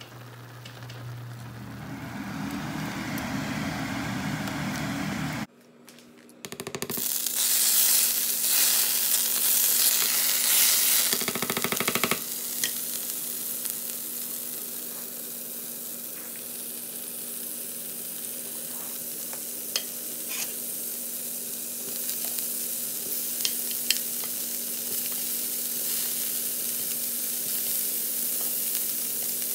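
Food sizzling in a hot frying pan while it is stirred. The sizzle drops out briefly about six seconds in, comes back louder for a few seconds, then settles into a steady sizzle with a few light utensil clicks.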